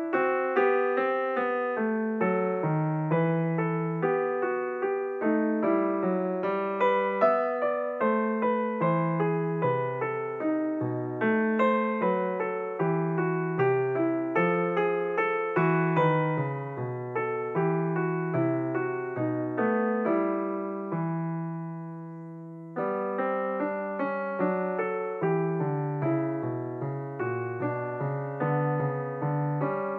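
Background music: solo piano playing a steady run of notes. About two-thirds through, a held chord dies away briefly before the playing picks up again.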